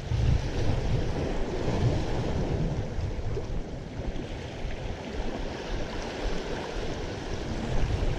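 Ocean surf washing in, with wind buffeting the microphone: a steady, low rushing noise.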